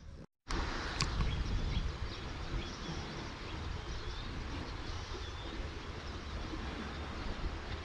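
Steady rushing noise of the fast-flowing, flood-swollen Wang River, heaviest in the low end, with faint bird chirps above it. The sound cuts out for a moment just after the start.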